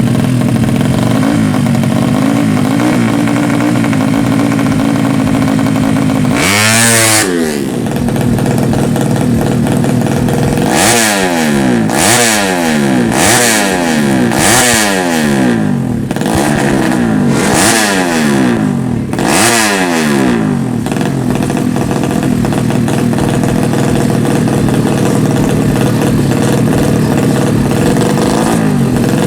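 Four-stroke underbone drag bike engine, open-piped, running steadily and then revved: one rev, then a string of about nine quick throttle blips roughly a second apart, before it settles back to steady running.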